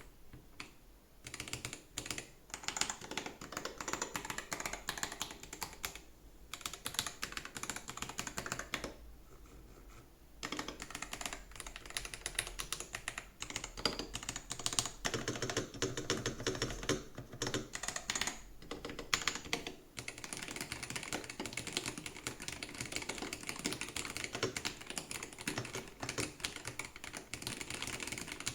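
Typing on a Keydous NJ98-CP V2 HE full-size magnetic-switch keyboard with a brass plate: fast runs of keystrokes in bursts, broken by a few short pauses, with steadier continuous typing in the last third.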